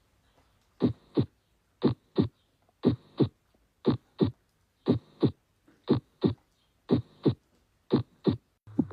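Heart sounds through a stethoscope: a steady lub-dub, each beat a pair of short thumps, about one beat a second, eight beats in all.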